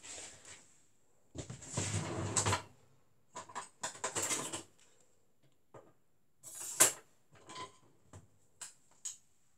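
A kitchen drawer sliding open and metal cutlery rattling and clinking as someone rummages in it for a knife and wooden spoon, with one sharper clack about two-thirds of the way through.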